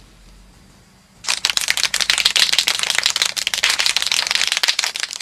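Rapid, dry rattling clatter of many clicks a second, starting about a second in and stopping just before the end: a cartoon sound effect for sand being flung up from the bottom of a pit.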